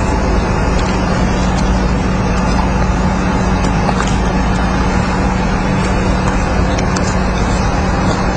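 Steady motor-vehicle noise with a constant low hum, and a few faint clicks.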